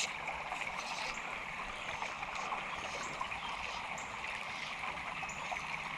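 Creek water running steadily over riffles, a constant even rush with a trickling edge.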